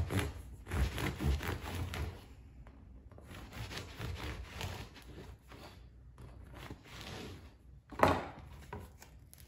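Bread knife sawing through the crust of a sourdough loaf on a wooden cutting board: a quick run of loud rasping strokes, then quieter strokes further into the crumb. A single sharp knock about eight seconds in.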